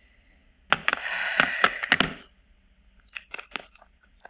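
Scratchy rustling with crackles for about a second and a half, then a run of small clicks: excess mascara being wiped off one side of the brush.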